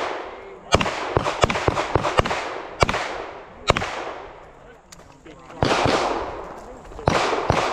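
Handgun fired at a run of targets: about a dozen sharp shots in quick strings, with a pause of about a second and a half in the middle. Each shot is followed by a fading echo.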